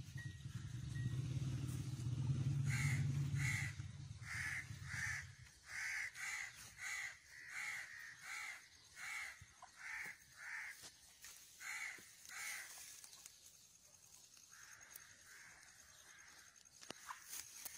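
A bird giving a long run of short repeated calls, roughly two a second for about ten seconds, over a low motor rumble that dies away about five seconds in.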